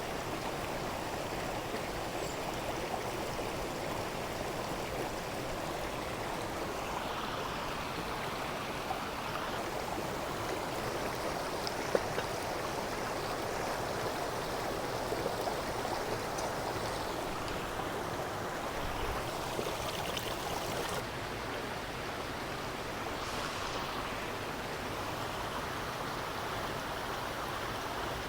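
A river rushing steadily, running heavy and swollen after a hurricane. A single short click about halfway through.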